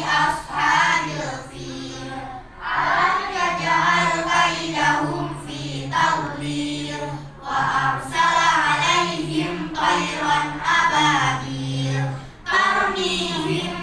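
A group of children's voices chanting in unison, in melodic phrases with long held notes and short breaks between them.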